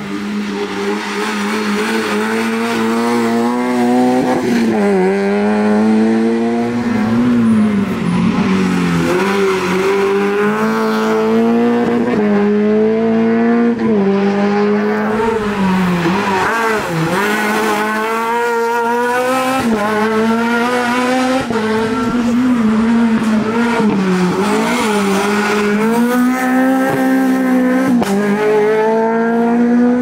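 Rally car engine at hard throttle, the pitch repeatedly climbing and then dropping every second or two as it changes gear and brakes for the bends.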